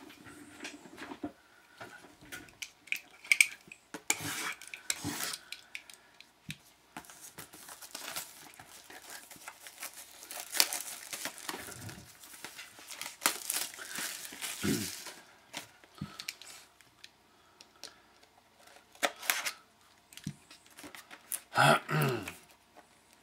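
Plastic shrink-wrap crinkling and tearing as a sealed box of hockey cards is unwrapped and opened by hand, with scattered cardboard clicks and rustles. The crinkling is busiest in the middle.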